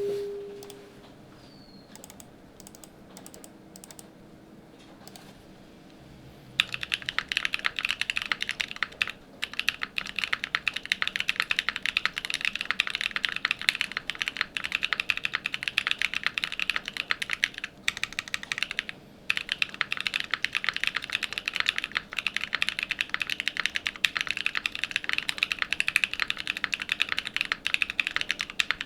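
Mechanical keyboard with BSUN Strawberry Cheesecake factory-lubed switches, an FR4 plate and GMK WOB keycaps being typed on. A few scattered keystrokes come first, then about six seconds in fast, continuous typing begins, with a couple of brief pauses.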